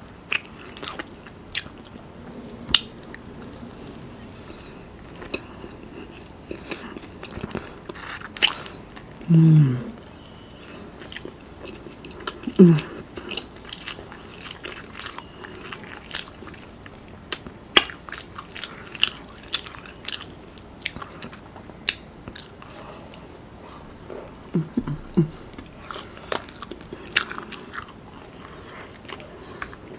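Close-miked chewing and biting of sauced, battered orange chicken: crunches and wet mouth clicks. A few short hums about 9, 12 and 25 seconds in.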